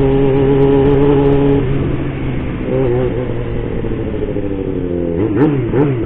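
Motorcycle engine running at a steady cruising speed, its note dropping a little after about two seconds as the rider eases off. Near the end the pitch swings quickly up and down.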